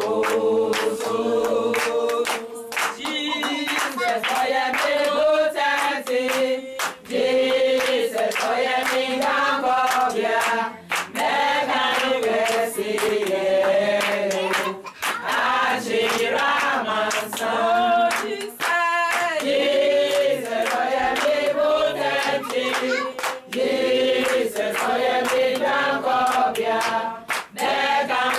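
A group of people singing together, with hand-clapping keeping time throughout.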